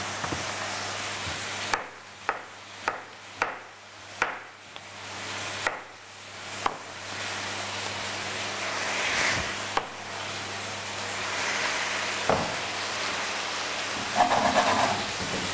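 A frying pan of vegetables sizzling, with a knife chopping spring onions on a cutting board: about seven sharp, separate chops between two and seven seconds in. Near the end, a utensil stirring and scraping quickly in the pan.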